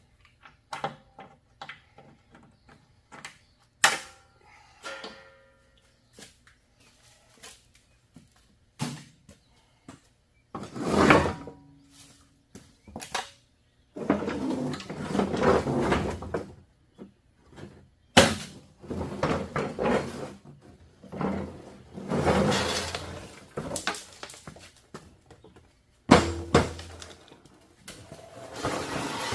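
Hand work on a riding lawnmower: irregular knocks, clunks and metal handling noises, some sharp and some longer scraping or rustling stretches, broken by abrupt gaps.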